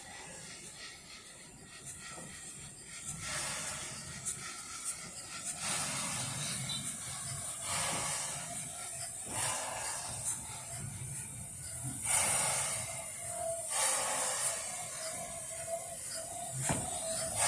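Steam locomotive hissing steam, in surges that swell and fade every two seconds or so.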